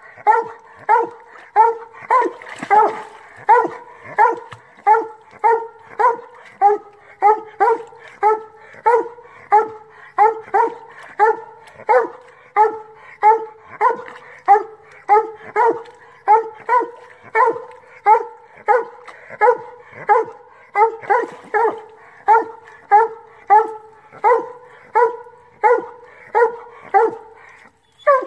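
Black and tan coonhound barking treed, a steady, even chop of short pitched barks about two a second: the tree bark that signals game up the tree.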